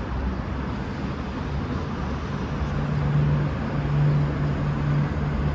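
V/Line VLocity diesel multiple unit running as it pulls away, a steady low engine drone over rumbling rail noise that grows stronger about two and a half seconds in.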